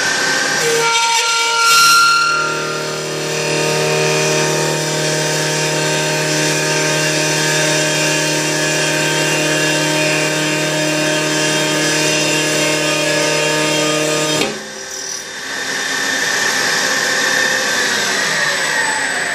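Milling machine running, its half-inch end mill cutting notches into the edge of an aluminum plate: a steady machine whine with cutting noise. There is a louder moment about two seconds in, and the sound drops briefly about three-quarters of the way through before it resumes.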